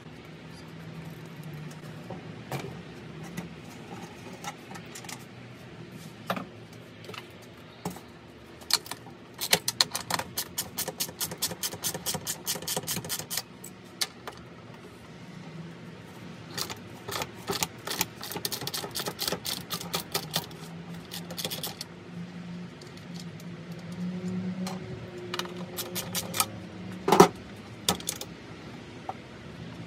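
Socket ratchet clicking in quick, even runs while seat-mounting bolts are run down, with scattered clinks of metal hardware and one sharp metallic knock near the end. A steady low hum runs underneath.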